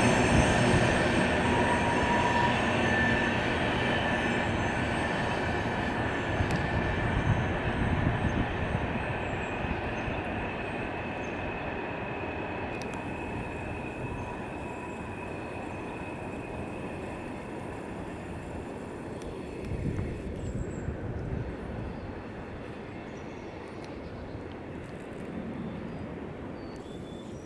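Freight train of covered hopper cars rolling away, its rumble fading steadily, with thin high wheel squeal that dies away over the first half.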